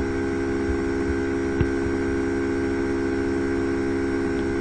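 Steady electrical mains hum made of several even tones, with one faint click about a second and a half in.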